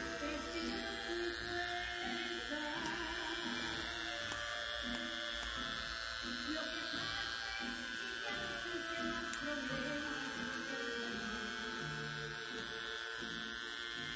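A small electric motor buzzing steadily, with music playing behind it.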